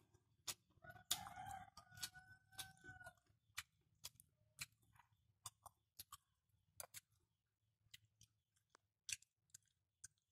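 Quiet close-up eating sounds: scattered sharp clicks and smacks from a spoon and chewing. A rooster crows in the background about a second in, for about two seconds.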